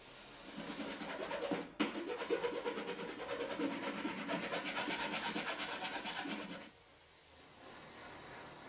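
Flat metal hand file rasping across the edge of a small piece of thin solid wood in quick, repeated strokes. The filing stops about two seconds before the end, and a steady faint hiss follows.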